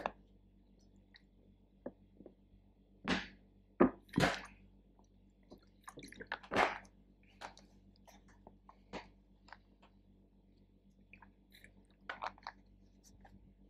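Close-up mouth and handling sounds of a person eating or drinking: scattered crunches, smacks and crinkles at an uneven pace, loudest about three to four seconds in, with a small cluster near the end.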